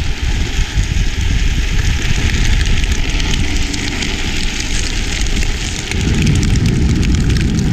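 Wind rushing over a moving action-camera microphone, with the rumble and gritty scraping of drift trikes' hard plastic rear sleeves sliding on rough asphalt. The rumble gets louder about six seconds in.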